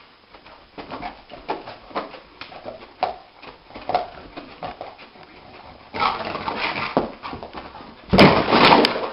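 A dog whimpering and yipping in its sleep, short muffled cries coming a couple of times a second while it paddles its legs in a dream. Just after eight seconds, a loud crash lasting about a second as it jumps up and runs into the wall.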